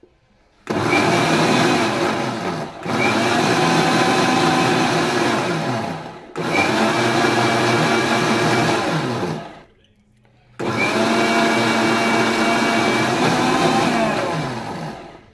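Electric mixer grinder with a stainless-steel jar churning milk cream (malai) and water to separate butter. It runs in four bursts of a few seconds each with brief pauses between, and its whine winds down as each run is switched off.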